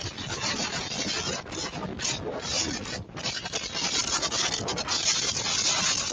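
Violent storm wind blasting a microphone, a continuous rough rushing noise with a few brief lulls; the owner of the footage reported it as a tornado sweeping through.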